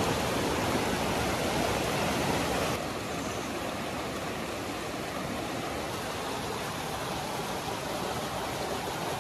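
Shallow mountain stream flowing over rocks: a steady rush of water, slightly quieter from about three seconds in.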